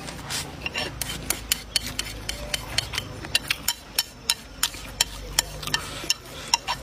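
Chopsticks clicking and scraping against a bowl as rice is shoveled up to the mouth: a quick, uneven run of sharp ticks, several a second.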